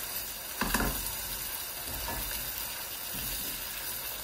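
Beef cubes, onion rounds and crushed garlic sizzling steadily as they fry in a pot, stirred with a spatula.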